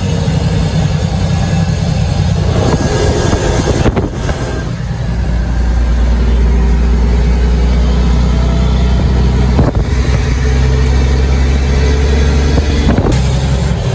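Heavy truck's engine running under way, heard from inside the cab as a deep steady drone, broken briefly about four, ten and thirteen seconds in.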